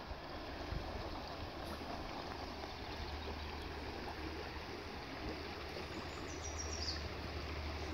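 Steady rushing outdoor background noise with a low rumble underneath. About six seconds in, a short run of high notes steps downward.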